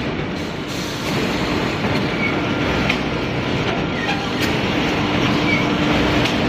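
Core veneer composer machine running: a steady mechanical clatter of its belt conveyors under a continuous hum, with a few sharp clicks now and then.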